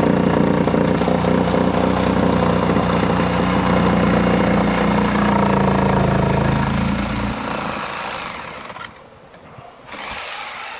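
Corded electric drill running as it bores into the barn's old wooden siding, its pitch dropping a little midway, then stopping about seven seconds in.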